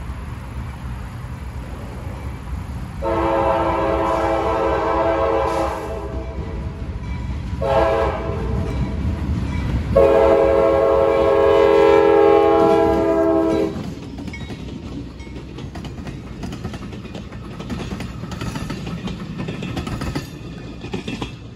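Diesel locomotive of a CSX geometry train sounding its multi-chime air horn for a grade crossing as it approaches: a long blast, a short one, then a long one of nearly four seconds. The train then rumbles past, wheels clicking over the rail joints.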